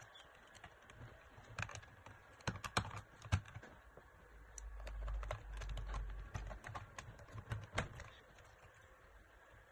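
Hard plastic parts of a toy dinosaur clicking and knocking as they are handled and fitted back into its plastic body, a few sharp clicks scattered through, with a low muffled rumble of handling about halfway through.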